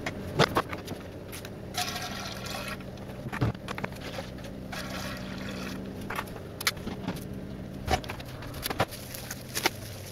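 Handling of a glass cider demijohn: sharp clicks and knocks of glass and plastic fittings at its neck, with two bursts of liquid being poured or splashing, about two and five seconds in, over a steady low hum.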